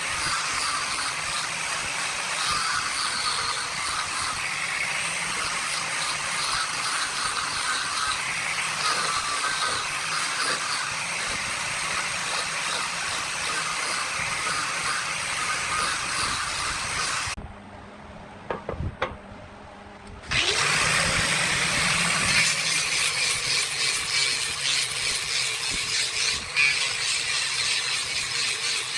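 Wood lathe turning a wood-and-epoxy bowl while it is worked, a steady even noise. About two-thirds of the way in the noise drops away for roughly three seconds, with a few clicks, then starts again at full level.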